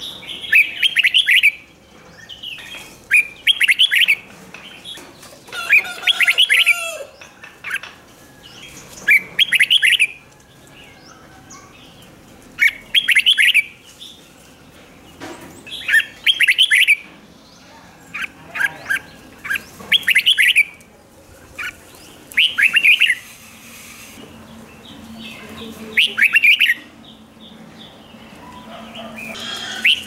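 Red-whiskered bulbul singing: about ten short, fast, warbling phrases of roughly a second each, repeated every two to three seconds.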